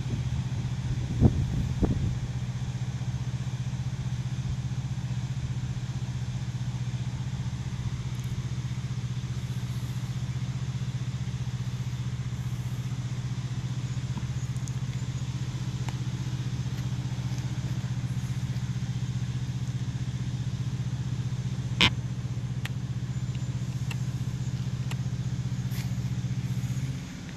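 A steady low engine hum at an even pitch, with a few knocks in the first couple of seconds and one sharp click about twenty-two seconds in.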